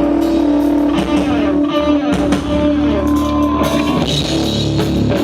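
Rock band playing: electric guitar with held and sliding notes over drums.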